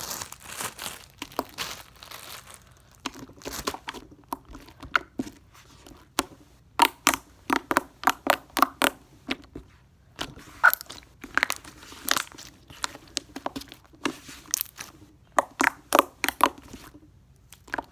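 Soft, glossy slime being squeezed and worked by hand, giving off quick runs of wet clicks and pops in several clusters.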